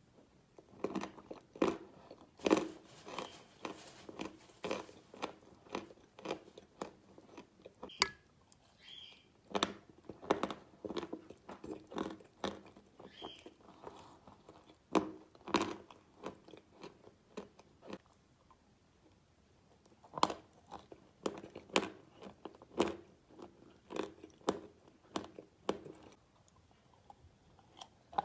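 Close-up eating sounds: a person takes spoonfuls of a thick dark paste and chews them, with irregular wet smacks, crackles and crunchy bites coming in clusters separated by brief pauses.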